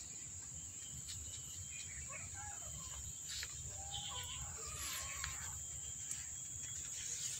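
Faint, short mews from the nursing cats a few times, about two and four seconds in, over a steady high-pitched drone and a low background rumble.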